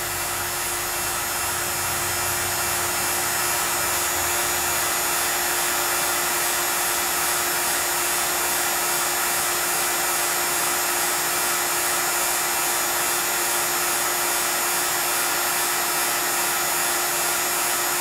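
Refrigeration vacuum pump running steadily while evacuating an HVAC system: an even, unbroken hiss with a constant tone underneath.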